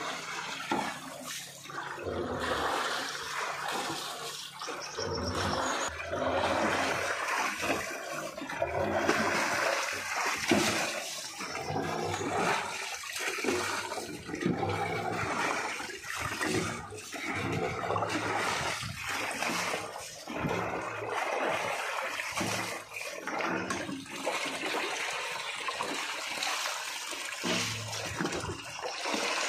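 Water poured from a plastic jug into the pipe of a tube-well pump, splashing and gurgling in repeated pours that swell and fade every few seconds: the pump is being primed with water.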